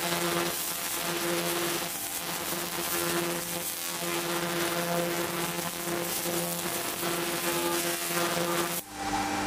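Pulsed fiber laser cleaner buzzing and crackling as its scanning beam ablates rust off a steel plate, the hum coming and going in short stretches. About nine seconds in it cuts off abruptly and a steadier machine hum takes over.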